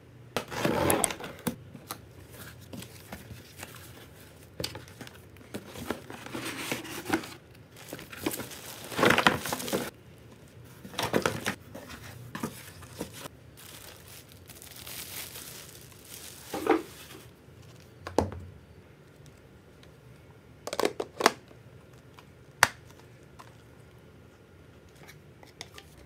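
Unboxing a stick vacuum cleaner: packaging rustling and crinkling in irregular bursts, with some tearing, and a few sharp knocks as parts are handled and set down.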